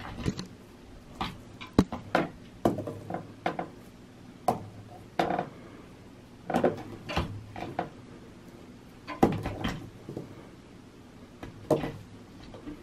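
Irregular light taps and knocks on a wooden table as a yarn pom-pom wand toy is jiggled and bounced over it, with no steady sound between the knocks.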